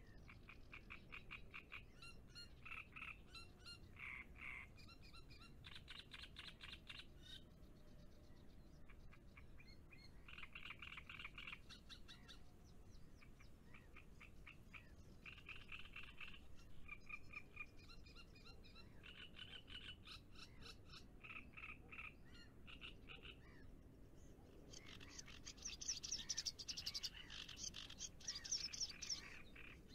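Faint frog chorus: bouts of rapid pulsed croaking a second or two long, repeating again and again, louder near the end.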